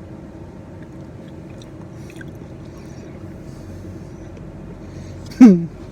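Steady low background rumble, the hum of passing traffic. Near the end comes one short, loud vocal sound from the eater close to the microphone, falling in pitch, like a grunt or burp.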